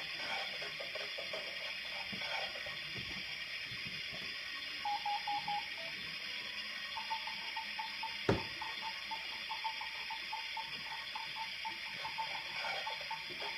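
Electronic beeps from a toy play kitchen: four quick beeps, then a steady run of beeps about three a second like a cooking timer, over a steady hiss. A sharp plastic click about eight seconds in.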